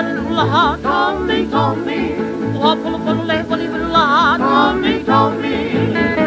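Hawaiian string-band music from a 1936 78 rpm record: a lead melody with wide, swooping vibrato over a steady plucked rhythm and bass, with the dull, treble-less sound of an old shellac disc.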